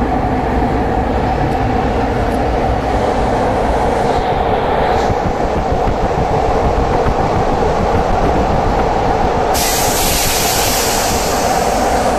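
Athens Metro Line 1 electric train running on the track, a steady loud rumble of wheels and motors. About ten seconds in, a sudden high hiss starts and continues over the rumble.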